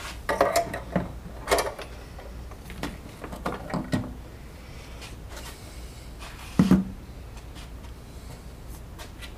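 A handful of short, irregular knocks and clatters of objects being handled and set down, the sharpest about half a second, one and a half and six and a half seconds in, over a low steady hum.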